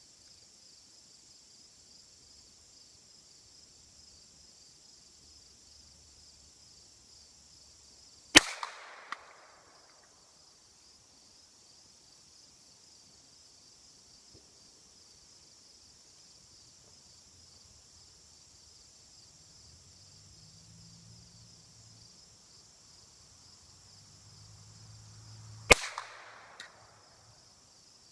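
Two single gunshots, about seventeen seconds apart, each cracking sharply and trailing off in a short echo. Insects buzz steadily underneath.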